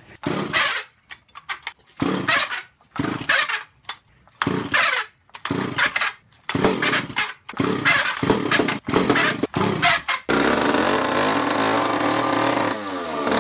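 Old Echo two-stroke chainsaw being pull-started: about ten short pulls on the starter cord, then the engine catches about ten seconds in and runs fast. Its speed drops near the end.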